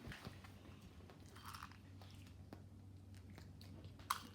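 Dog chewing a piece of dry dog food given as a reward, with faint scattered crunches and a sharper click near the end.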